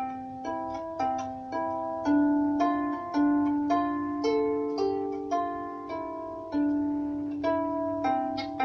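A 19-string Celtic harp played solo: a slow melody of plucked notes, about two a second, each left to ring on under the next.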